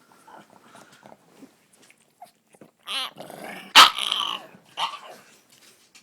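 Pug making weird vocal noises: faint snuffly sounds at first, then a pitched burst about three seconds in, the loudest sharp burst just before four seconds, and a shorter one about a second later.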